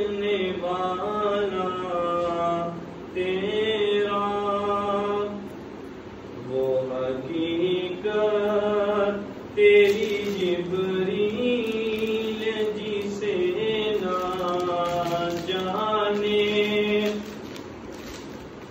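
A solo male voice chanting a devotional recitation unaccompanied, melodic with long held, wavering notes, pausing briefly twice. A short sharp noise comes about halfway through.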